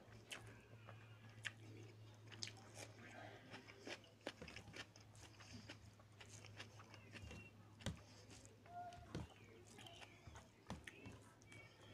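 Faint eating sounds of rice and chicken curry eaten by hand: fingers squishing and mixing the rice and curry on the plate, with chewing and mouth smacks. The sounds come as a scatter of small, sticky clicks over a steady low hum.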